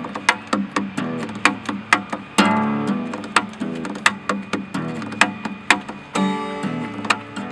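Acoustic guitar playing: strummed and picked chords with sharp percussive hits keeping a steady beat. Big full chords ring out about two and a half seconds in and again about six seconds in.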